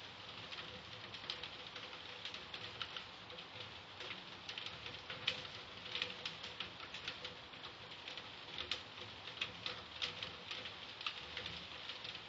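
Typhoon rain falling steadily, with many irregular drops tapping sharply close by.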